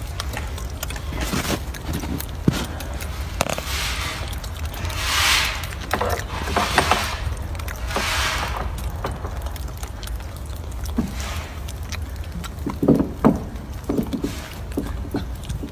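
Outdoor background noise: a steady low rumble with swells of hiss, like wind on the microphone, and a few scattered clicks.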